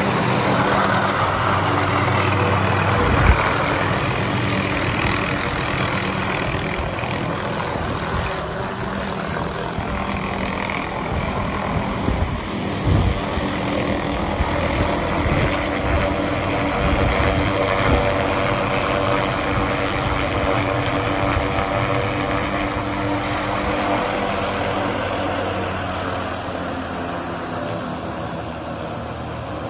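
Small turbine helicopter of the MD 500 type descending and setting down on its skids, then running on the ground with its rotor turning. A steady blade beat over the turbine, with a few short thumps and the level easing off slowly towards the end.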